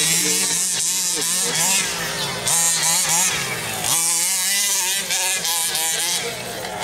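A 1/5-scale RC car's two-stroke petrol engine revving up and down again and again, its pitch rising and falling, with bursts of high rasping noise on each throttle blip. A steady low drone runs underneath.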